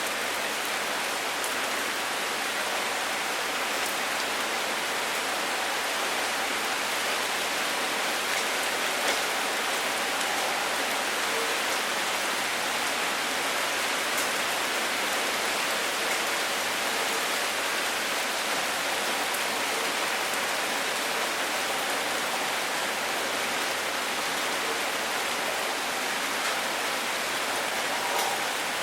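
Steady rain falling and pattering on a surface, an even hiss with occasional faint drop ticks.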